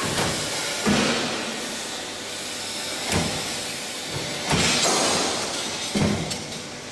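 A CNC pipe bending machine working through its cycle: a steady machine hum broken by four short, sudden hissing bursts, about one, three, four and a half, and six seconds in.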